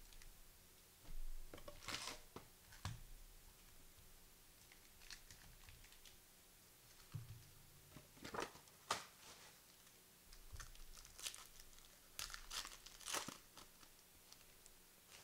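Foil trading-card pack wrappers being torn open and crinkled in several short bursts of rustling, with the cards being handled.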